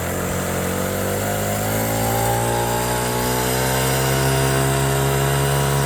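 ATV engine running, its pitch rising slowly through the first few seconds and then holding steady.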